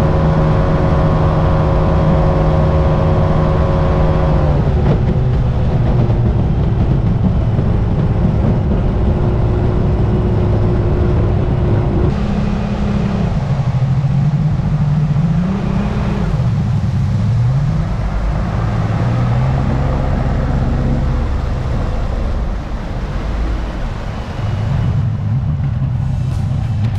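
Mercury 3.0-litre EFI V6 two-stroke outboard running at high speed, holding a steady pitch, then backing off about five seconds in. Through the middle its revs rise and fall several times as the boat turns, easing lower near the end, over steady wind and water rush.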